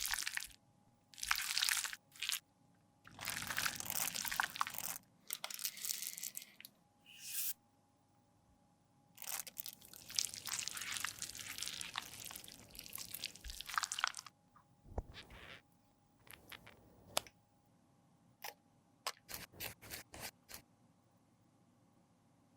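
Crunching and scraping of makeup being worked by hand, in bursts lasting one to a few seconds. From about two-thirds of the way in, it gives way to a run of short, sharp clicks and taps.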